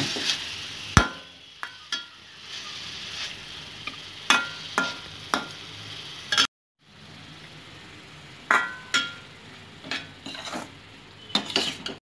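Perforated steel spatula stirring grated beetroot in a stainless steel kadai, clinking and scraping against the pan about a dozen times over a steady low sizzle of frying. The sound drops out completely for a moment about halfway through.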